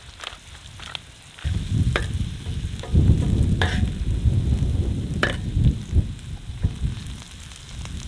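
Chopped vegetables frying in a large steel pan while a knife blade stirs them and scrapes against the metal, giving several sharp scrapes. Underneath runs a low rumble that grows louder about a second and a half in.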